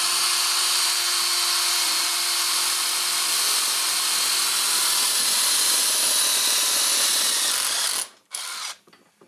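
Cordless drill running steadily with a step bit, cutting a hole through a metal bracket clamped in a bench vise, for about eight seconds; it stops suddenly, then gives one short burst.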